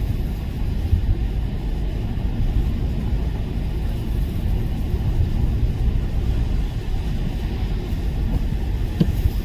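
Cabin noise of a car driving on a wet highway: a steady low rumble of engine and tyres on wet road. A single brief click sounds near the end.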